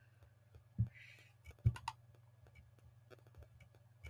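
A few quiet computer mouse clicks, the strongest about a second apart, over a low steady hum.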